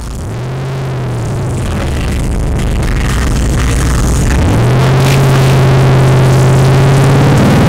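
Electronic music with a deep synth bass fading in: the bass slides up and holds a note twice, and the track grows louder throughout.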